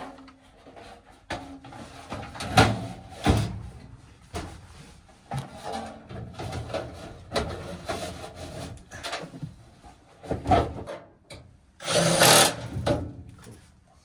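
Sheet-metal blower housing of a Trane furnace being pushed into the cabinet on its rails: irregular metal knocks and scrapes, with a louder rasping slide about twelve seconds in.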